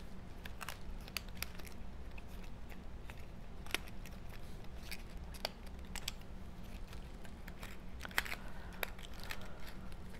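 Cardstock slices being worked into each other's slots by hand: irregular light clicks and rustles of stiff paper, sharpest about four and eight seconds in.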